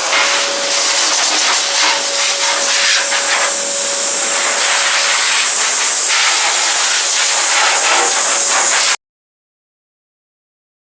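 Eureka Forbes X-Force vacuum cleaner running, a loud steady rush of air with a faint whine, cutting off suddenly near nine seconds in.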